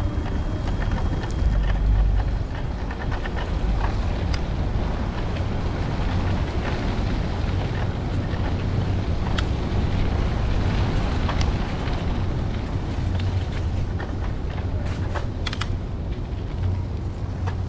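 Wind rumbling on the microphone of a camera riding on a moving bicycle, with steady road noise and a few scattered small clicks and rattles.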